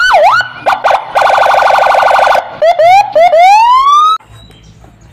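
Electronic police siren switching through its tones: a fast up-and-down wail, then a rapid steady pulsing tone, then a few short rising whoops and one longer rise that cuts off about four seconds in.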